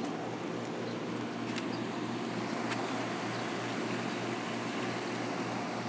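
Hot tub running with its jets on: a steady pump hum under churning, bubbling water.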